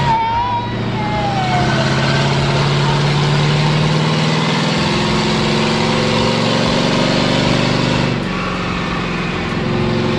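Heavy vehicle engine under load, its pitch climbing slowly for about eight seconds, then dropping as it eases off.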